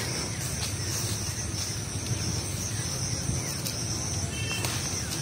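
Steady, high-pitched trilling of insects over a low, even rumbling noise, with a few faint clicks.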